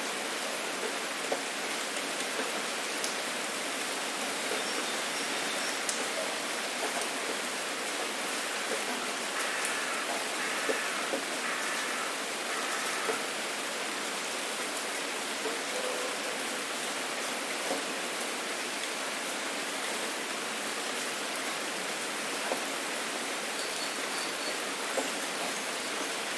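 Steady rain falling, a constant hiss with scattered individual drops ticking on surfaces.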